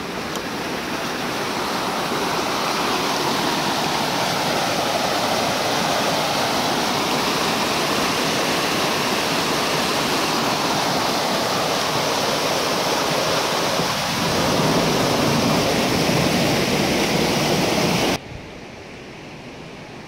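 Water rushing steadily over granite bedrock in a small waterfall cascade. Near the end it cuts off suddenly to a much quieter, faint hiss.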